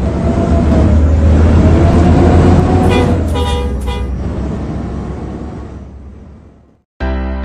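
Bus engine rumbling with a slowly rising and falling drone, and a bus horn blaring about three seconds in. The sound then fades away to silence.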